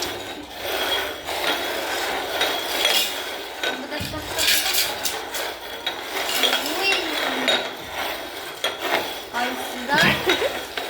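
Cups being shuffled and slid around on a table in a ball-under-cups game, with repeated irregular clattering and clinking.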